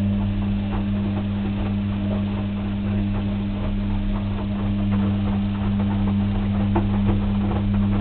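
Clothes washing machine running: a steady motor hum with many small clicks and knocks from the drum and its load.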